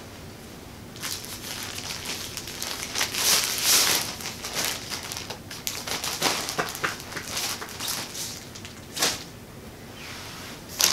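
Plastic packaging bags and clothing rustling and crinkling in irregular handfuls as garments are unpacked and folded, loudest about three to four seconds in. A short sharp crinkle comes about nine seconds in.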